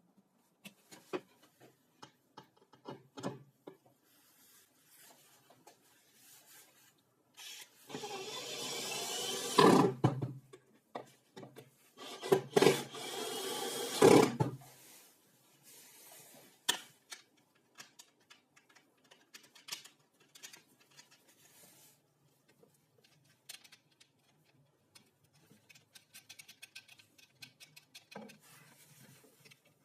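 Two bursts of a tool rubbing or rasping against wood, each about two seconds long, with scattered light clicks and knocks of parts being handled between them.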